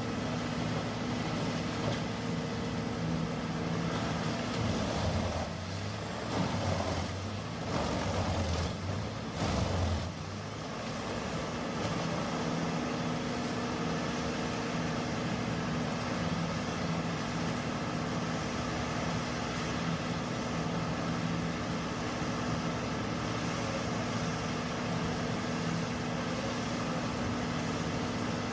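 Large horizontal tree grinder (HG6800TX) running, its engine giving a steady hum, with a rougher, uneven stretch about five to ten seconds in.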